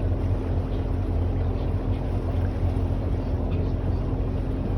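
Tour boat's engine running steadily, a low drone heard from on board the boat.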